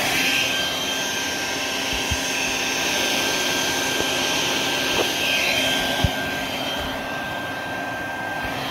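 Vacuum cleaner running steadily with a constant motor whine, with a couple of faint knocks about two and six seconds in.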